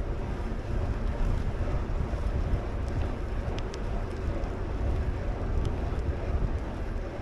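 Wind buffeting a moving camera's microphone during a ride along a paved path: a steady, uneven low rumble. A few faint ticks come through in the middle.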